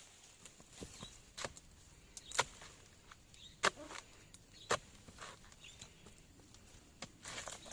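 Four sharp chopping knocks about a second apart, a blade striking oil palm, with a few smaller ticks between.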